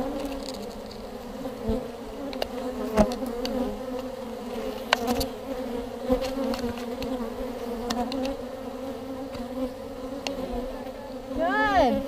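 Steady buzzing hum of a large open-air honey bee colony clustered on exposed comb, with a few sharp clicks scattered through it.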